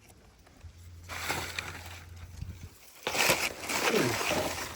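Rustling and crunching, as of wet leaf litter or soil being dug through by hand, starting about a second in and growing much louder about three seconds in.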